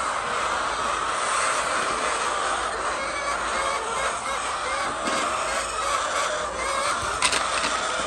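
A flock of chickens clucking and calling together in a steady, dense din. A single sharp click comes near the end.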